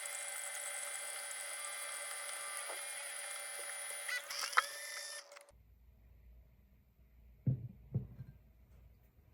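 Keurig single-serve coffee maker running an empty rinse brew with no pod: a steady pump hum with a whine and hiss, which wavers and sputters about four seconds in and stops abruptly about five and a half seconds in. Two short knocks follow about two seconds later.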